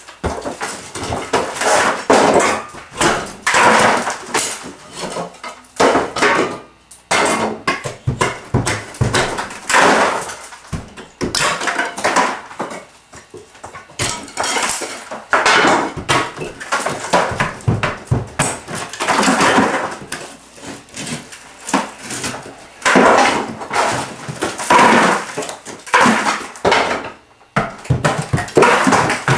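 Plaster and wooden lath being pried off a wall with a crowbar: irregular cracks, knocks and crashes over and over, with plaster crumbling and falling.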